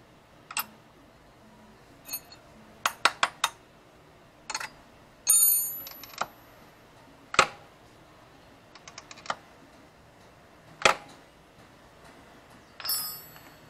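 Irregular sharp metallic clicks and clanks from hand tools and a motorcycle's adjustable side stand being worked and swung down and up. There are four quick clicks about three seconds in, a cluster of light ticks around nine seconds, and two short ringing clinks of metal, one about five seconds in and one near the end.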